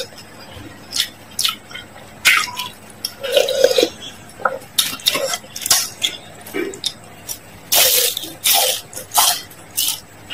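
Close-miked eating sounds: wet chewing, mouth smacks and slurps of spicy noodles and fried taro spring rolls, in irregular short bursts.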